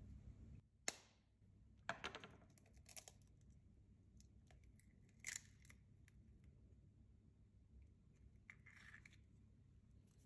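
A raw egg cracked with a sharp tap about a second in, then its shell crackling as it is pried open, followed by a few faint clicks and a brief rustle as the egg is separated.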